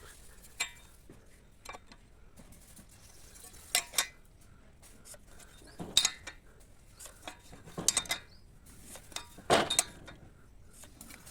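Pieces of metal knocking and clinking together as they are handled, in about six separate sharp strikes with a brief ring after the louder ones.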